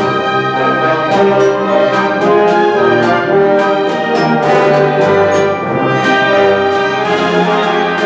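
Live symphony orchestra playing, the brass section to the fore with held chords over the strings, punctuated by frequent sharp percussion strikes.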